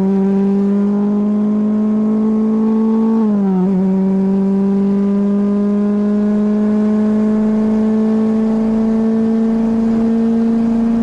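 Super FJ single-seater's Honda 1.5-litre four-cylinder engine pulling at high revs under full throttle, heard from the cockpit. Its pitch climbs steadily, with a short dip about three seconds in where it changes up a gear, then climbs again.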